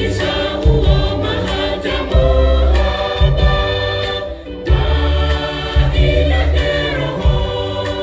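Church choir singing a gospel song in full voice over a pulsing bass beat and percussion, dipping briefly about halfway through.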